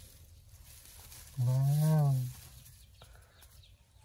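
A single low, drawn-out vocal call about a second and a half in, lasting under a second, rising then falling in pitch.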